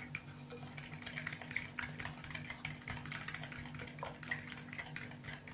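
A fork clicking and scraping against the side of a bowl as melted butter, sugar and eggs are beaten together until smooth: a quick, irregular run of small ticks over a low steady hum.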